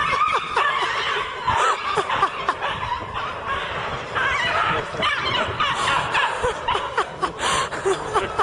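People laughing and snickering in short, bubbling bursts, with bits of voices mixed in.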